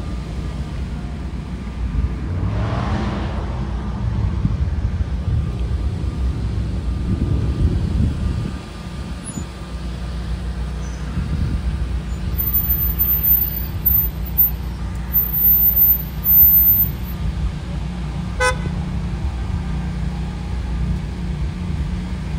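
Low, steady rumble of jet aircraft engines from a formation flying in the distance, swelling and easing, with one sharp click about eighteen seconds in.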